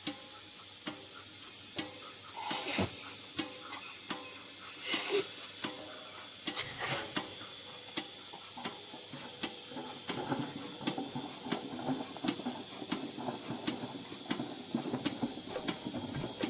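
Cow milking machine running: its pulsator clicks steadily about once a second over a constant hiss. There are a couple of louder bursts of hissing early on, and from about halfway through a busier run of quick pulses.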